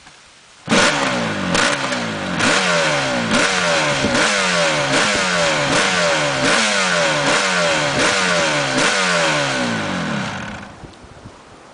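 Two-stroke multi-cylinder motorcycle engine revved in repeated throttle blips, about one a second, the revs jumping up and then falling away each time. It starts abruptly and dies away near the end.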